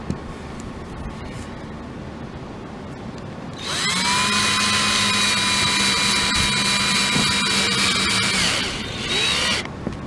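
Cordless drill/driver driving a pan head screw through a plastic solar cable entry plate into the trailer roof. The motor spins up about a third of the way in and runs steadily for about five seconds, then gives a second short burst near the end.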